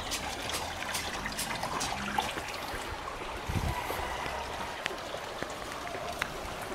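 Water trickling steadily in an open channel beside a walkway, with faint scattered footstep ticks.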